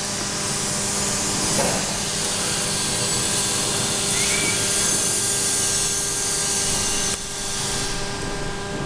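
Drive motor of a stainless steel rotating jib crane running steadily as the boom slews with its load: a steady, hiss-like whirr with a constant hum under it, dropping slightly about seven seconds in.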